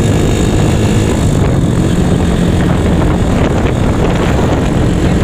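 Yamaha Mio scooter fitted with a Honda Megapro single-cylinder four-stroke engine, running steadily while riding along, with wind rushing over the microphone.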